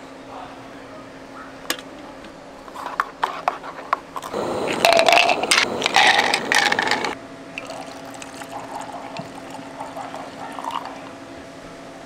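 Liquid poured into a cup to make iced coffee, a loud pour lasting about three seconds from about four seconds in, after a few light clicks. A faint steady low hum runs underneath.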